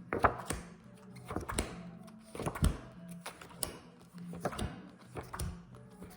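Paper flashcards being handled: short taps and thunks about once a second as the cards are flipped and set down, over a faint steady low hum.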